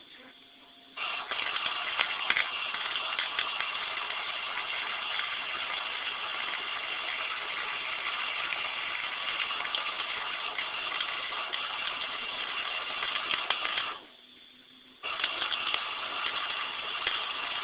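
Electric arc welding: the arc gives a steady crackling hiss that starts abruptly about a second in. It breaks off for about a second near the end, then is struck again.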